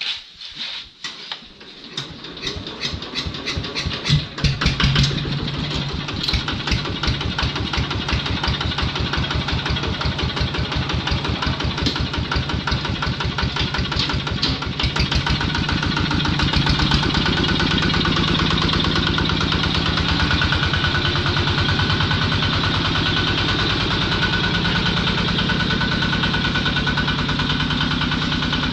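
A rebuilt compact tractor's small diesel engine is cranked and catches about four seconds in, then runs steadily with rapid firing pulses. It gets louder from about sixteen seconds as the tractor drives off.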